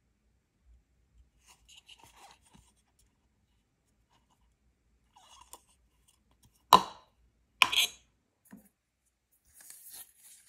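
Handling of egg cooker parts, a clear plastic measuring cup and a stainless steel lid: faint rubbing, then two sharp knocks about a second apart a little past halfway.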